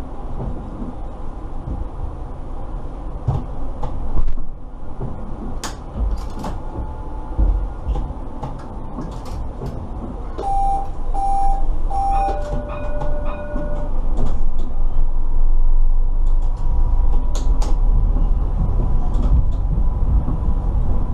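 Alstom Citadis Dualis tram-train at a stop: about halfway through, three short electronic beeps and a longer lower tone sound as the doors close. The tram then pulls away, its running noise growing louder, and a steady electric whine holds through the last few seconds. Scattered clicks sound throughout.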